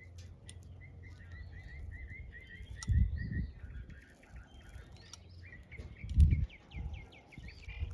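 Small birds chirping: a quick run of short, evenly repeated chirps over the first few seconds and another fast series of notes near the end. Two dull low thumps stand out, about three and six seconds in.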